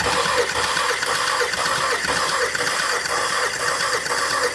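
Starter cranking the 2010 Volkswagen Tiguan's 2.0 TSI four-cylinder engine over steadily with the spark plugs out, without firing, for a compression test on the fourth cylinder.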